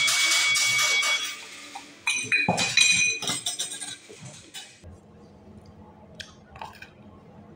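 A loud burst of noise with two steady high tones for about the first second. Then, from about two seconds in, a quick run of sharp clinks of crockery or glass, dying away after a few seconds.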